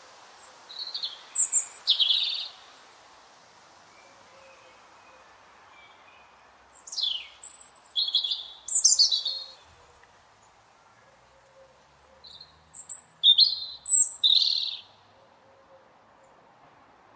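A robin singing: three short, high-pitched song phrases of quick varied notes, downward glides and trills, each separated by a pause of a few seconds.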